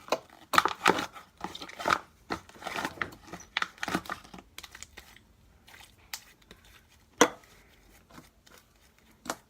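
Homemade slime being squeezed and pulled by hand, crackling and tearing with quick sharp clicks. The clicks come thick and fast at first, then thin out to a few single louder ones.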